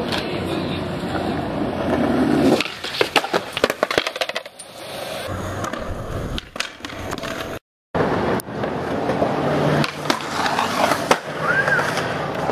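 Skateboard wheels rolling on concrete, with a run of sharp clacks of the board hitting the ground about two to four seconds in and more later on. The sound cuts out for an instant about eight seconds in.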